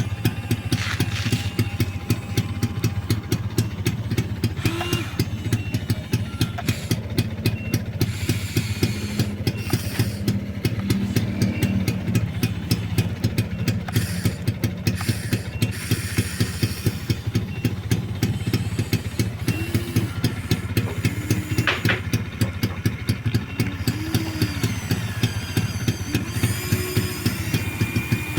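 Steady idling engine sound with a fast, even pulse and no break.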